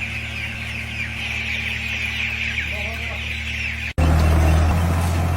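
A flock of poultry-farm chickens calling, many overlapping short calls, over the steady low hum of a running generator set. About four seconds in, the sound cuts abruptly to a louder, lower engine rumble.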